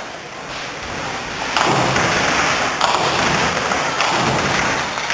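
Ninepin bowling balls rumbling along the lanes, with thuds of balls landing and pins being knocked down. The noise steps up suddenly about one and a half seconds in, with a few sharp knocks after that.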